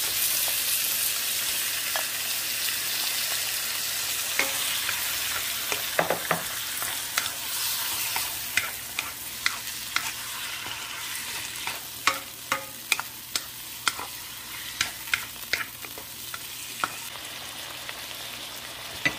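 Freshly added squid sizzling in hot oil in a nonstick wok, loudest at first and slowly easing off, while a wooden spatula stirs it with many sharp taps against the pan.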